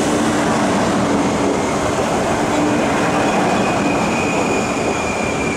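MTR East Rail Line Metro-Cammell (MLR) electric train pulling into a platform: a steady rumble of wheels on rail. A high whine strengthens and falls slightly in pitch in the second half as the train slows.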